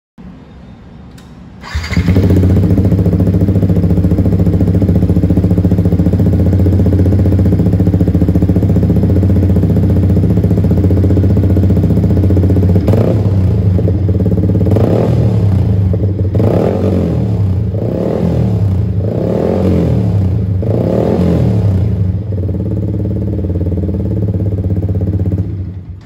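Yamaha XSR155's single-cylinder engine through an SC Project slip-on exhaust run open, with no dB killer fitted. It comes in loud about two seconds in and idles steadily, is revved in a run of short throttle blips from about the middle, then settles back to idle and stops just before the end.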